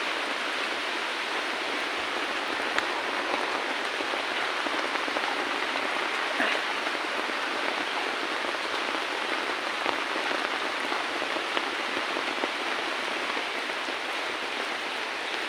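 Steady rain falling on leaves and wet ground, an even hiss with a few sharp ticks scattered through it.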